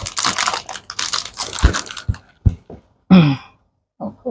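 Plastic snack packaging crinkling and crackling as a packet is handled and opened, in irregular bursts. There is a short vocal exclamation about three seconds in.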